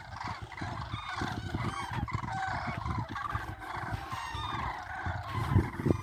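A large flock of common cranes calling together, many overlapping bugling calls at once, with a low buffeting rumble underneath.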